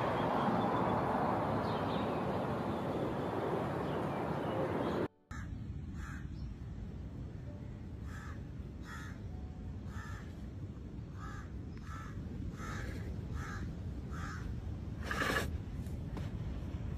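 Steady background noise, then after a brief break a run of about a dozen short animal calls, roughly one a second.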